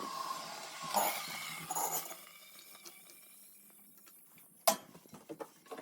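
Tea being made: a hiss that fades away over the first two seconds, then quiet until a single sharp clink near the end, with a few small ticks after it.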